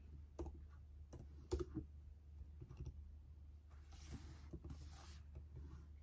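Scattered light clicks and taps, irregular and a few to the second, with a brief rustling hiss about four seconds in, over a steady low hum.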